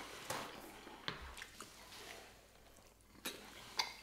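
Close-miked chewing of food, with scattered faint mouth clicks and smacks and a quieter spell about two and a half seconds in.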